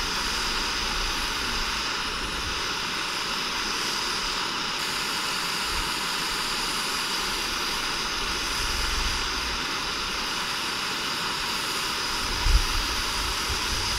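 Steady rushing noise, even throughout, with no distinct events.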